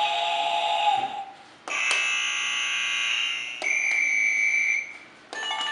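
Electronic game-show answer buzzers pressed one after another, each giving a different steady electronic alarm-like tone for a second or two, with short gaps between.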